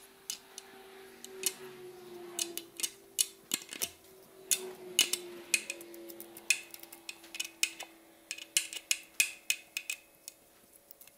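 Irregular metallic clicks and clinks, a few a second, as a thread-cleaning tap is turned in and backed out of an exhaust-stud hole in an LS cylinder head with a ratchet and tap handle. A faint steady hum sits underneath.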